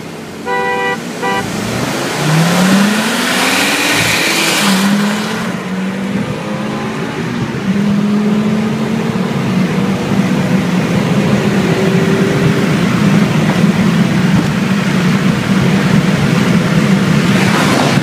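A car horn honks twice at the start, a longer honk then a short toot, as the signal to go. Then a car engine accelerates hard from a rolling start, its pitch rising through a gear change, and settles into a steady drone at speed with road and wind noise, heard from inside a car.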